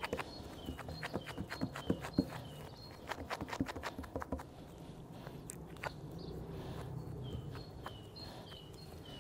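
Gloved hands pressing and smoothing raw minced meat around a metal skewer: soft, sticky smacking and clicking, dense in the first half and sparser later. Faint repeated high two-note chirps run alongside.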